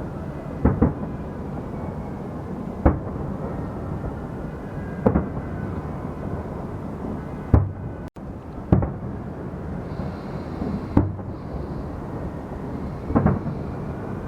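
Aerial fireworks shells bursting, a sharp boom about every two seconds, some as quick doubles, over a steady background din.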